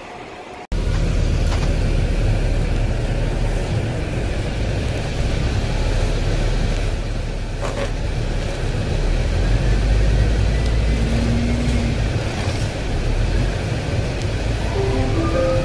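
Double-decker bus running, heard from inside the passenger deck: a steady, heavy low engine rumble with road noise, cutting in abruptly about a second in. A few brief higher tones come in near the end.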